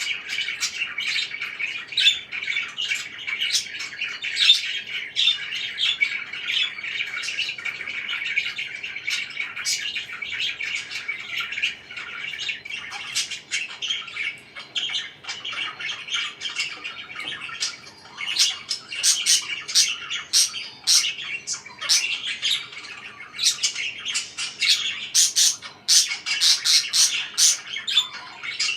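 Pet parakeets chattering and chirping without pause: a dense stream of short high chirps mixed with sharper squawks, growing busier and louder over the last third.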